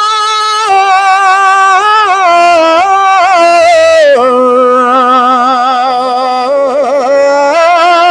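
A naat recited by one voice: long held notes that waver and bend in ornamented runs. The pitch steps down to a lower phrase about four seconds in.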